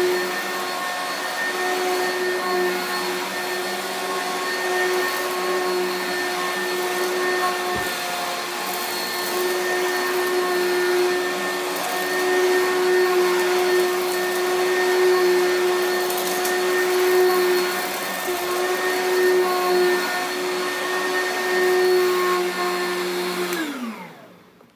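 Vacuum cleaner running steadily while pushed over carpet, then switched off near the end, its motor whine falling in pitch as it spins down.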